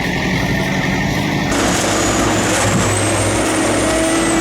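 Heavy diesel machinery running steadily. About one and a half seconds in, the sound switches abruptly to another machine, with a thin high whine that rises and then falls over the engine.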